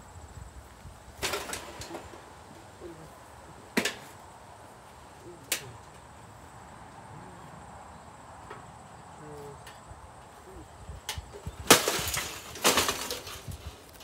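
A toaster oven being smashed: a few separate hard knocks, then two louder, clattering crashes near the end.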